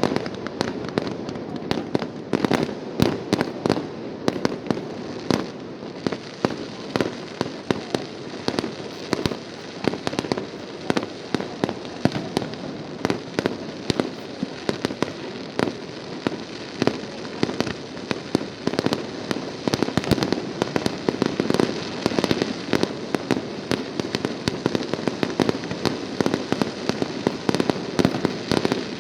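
Aerial fireworks exploding in a rapid, continuous barrage of bangs and crackles, many shells bursting close together with no pause.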